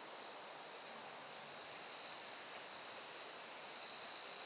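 Insects chirring steadily in the summer grass, a continuous faint high-pitched buzz with a light background hiss.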